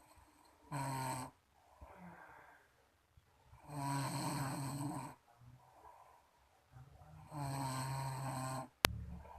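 A sleeping person snoring: three loud, drawn-out snores at an even pace, the last two each over a second long, with quieter breaths between. A single sharp click comes near the end.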